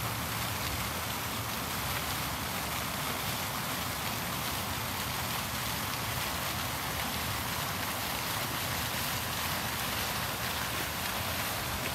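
Fountain jets splashing steadily into a stone basin, a continuous even hiss of falling water.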